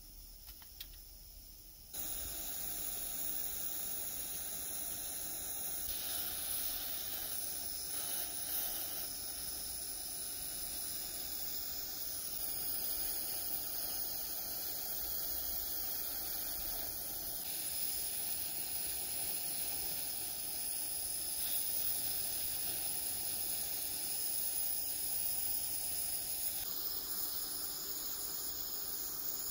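Gas torch flame hissing steadily while heating a metal seam for hard soldering. It starts suddenly about two seconds in and gets slightly louder partway through.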